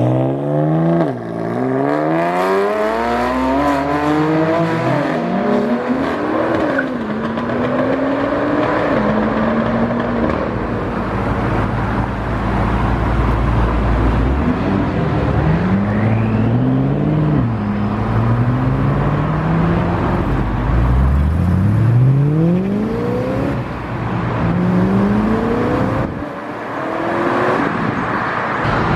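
Performance cars accelerating away one after another, their engines climbing in pitch and dropping back at each upshift. One car pulls through several gears in the first few seconds, and more follow in the second half, with a low engine rumble between the pulls.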